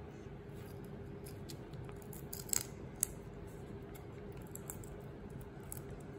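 Shrimp being peeled by hand: scattered small clicks and snaps of shell and head coming away, with a few sharper clicks around the middle, over a steady faint hum.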